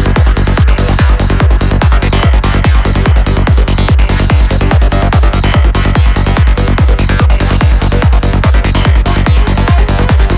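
Progressive psytrance track playing: a steady, even kick drum beat with a bassline between the kicks under layered synths.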